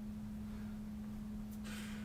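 Steady low electrical hum under faint room noise, with a short audible breath near the end.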